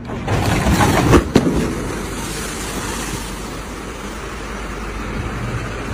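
Loud rushing of water and wind as an inflatable liferaft is deployed down a ship's evacuation chute into the sea, with two sharp knocks about a second in, settling into a steady rush.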